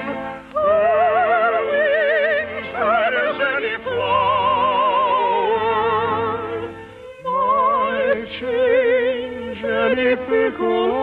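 A singer holding long, slow notes with wide vibrato over an orchestra in a ballad from a 1950s radio musical, with a short break about seven seconds in before the next phrase. The old broadcast recording has no highs.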